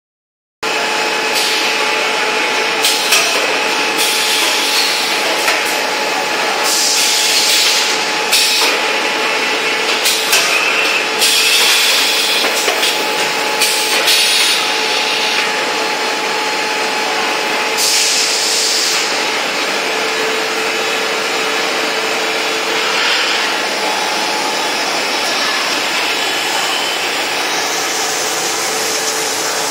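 Tissue packing machine with servo drives running on a factory floor: a dense, steady machine noise with two steady tones, broken by irregular short bursts of hiss, mostly in the first twenty seconds.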